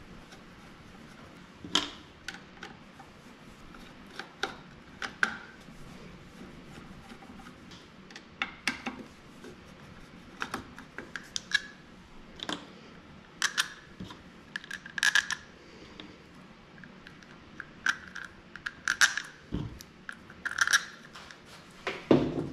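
Hand tools, small screws and a plastic engine cover being handled: scattered clicks, light knocks and short ringing metallic clinks, with irregular gaps between them.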